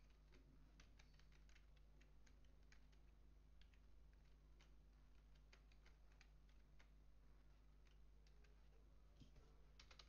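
Faint computer keyboard typing: irregular key clicks, bunched in the first half and again near the end, over a faint steady low hum.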